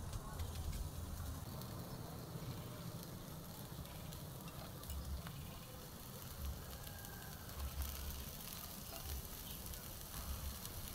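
Beef sizzling on a charcoal grill grate, a faint steady hiss, with a few soft low bumps.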